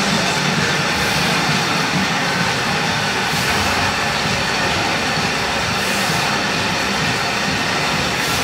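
Loud, dense background music filling the whole range, with a swishing sweep every two to three seconds.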